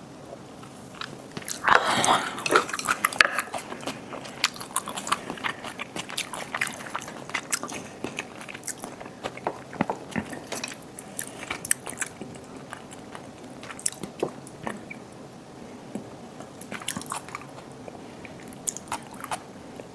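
Close-miked eating sounds: a person biting and chewing food, with wet, crisp crunches. The bites come thickest and loudest about two to three seconds in, then the chewing goes on more evenly.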